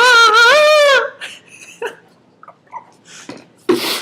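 A man's voice doing a mock bird call: a loud, wavering wail that breaks off about a second in, followed by a few small quieter vocal sounds and a sharp breath near the end.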